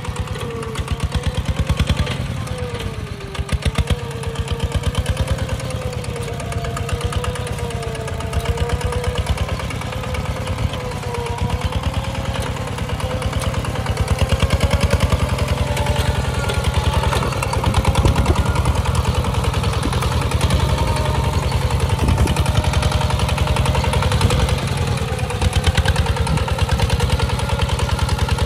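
The single-cylinder diesel engine of a Kubota two-wheel walking tractor chugging steadily under load as it pulls a plow through dry soil. It runs with a rapid, even firing beat, and a wavering tone rises and falls above it.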